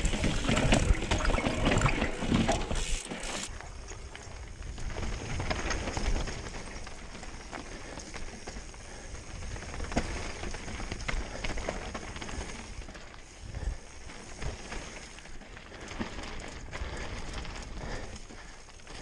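Trek Remedy 8 full-suspension mountain bike rolling over rocky trail, with tyre noise, rattles and wind on a chin-mounted action camera. The noise is loud for the first three or four seconds, then drops to a quieter rolling sound with scattered clicks and knocks.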